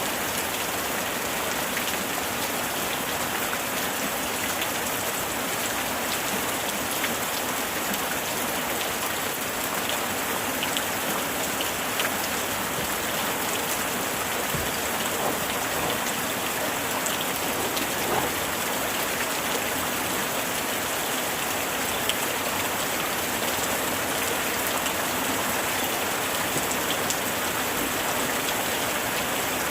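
Steady heavy rain, with many individual drops striking close by throughout.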